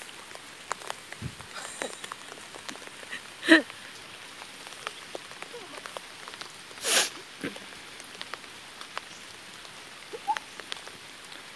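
Light rain pattering on the stream and bankside grass, a steady hiss dotted with small drop ticks. A louder sharp sound stands out about three and a half seconds in, and a brief rushing noise comes near seven seconds.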